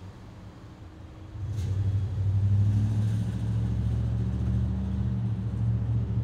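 Low engine rumble that swells in about a second and a half in, then holds steady.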